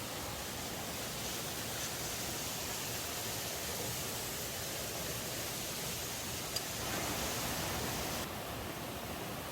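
Steady rushing of a valley stream, an even hiss of flowing water, with one short click about two-thirds of the way through.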